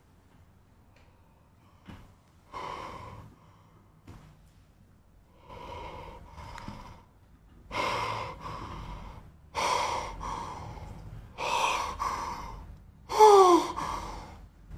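A man gasping in shock and disbelief: a series of sharp, breathy gasps a second or two apart, growing louder. The last one breaks into a falling voiced sound.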